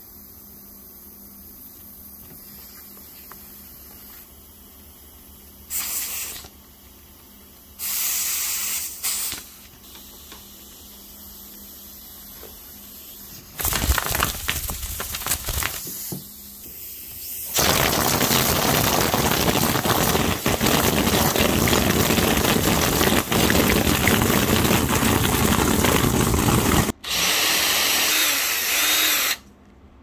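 Compressed shop air blowing through a small latex-tube air whip on an aluminium wand: two short blasts of hissing air, then a long steady blast in which the flailing tube adds a fast rattle to the hiss, broken off for an instant near the end before a last short blast.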